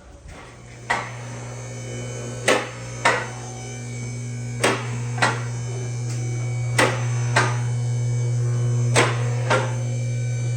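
Background music: a steady low drone under sharp percussive hits that fall in evenly spaced pairs about every two seconds.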